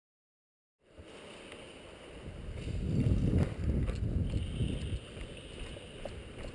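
After about a second of silence, a low rumble of wind and movement on a body-worn camera microphone, swelling to its loudest around the middle, with a few sharp clicks.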